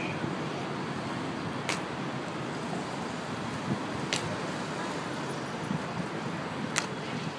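Hobnailed ceremonial shoes of Greek Evzone guards striking marble paving in a slow stamping march: three sharp clacks a couple of seconds apart, over a steady wash of city traffic.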